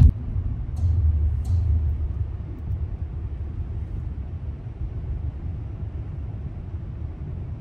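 Steady low road and engine rumble inside the cabin of a Nissan Armada SUV cruising on a highway, a little louder in the first couple of seconds.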